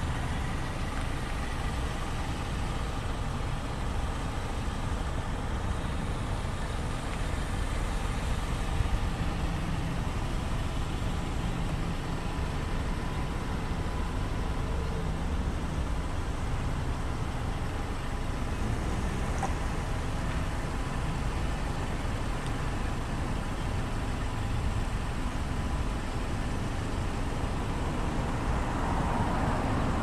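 Steady outdoor background noise: a low rumble with a hiss over it, growing a little louder near the end.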